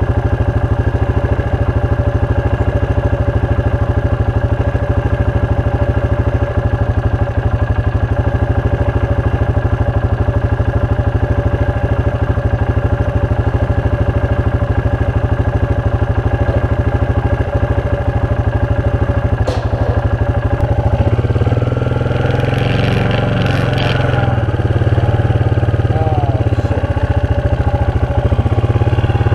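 Four-wheeler (ATV) engine idling steadily close up; about twenty seconds in it is driven off, and the engine note changes as it pulls away.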